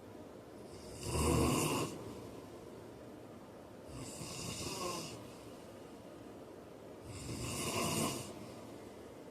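A heavy-set man snoring in his sleep: three snores about three seconds apart, the first the loudest.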